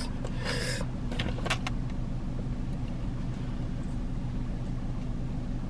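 Steady low hum inside a parked car's cabin, with a few light clicks and rustles in the first second and a half.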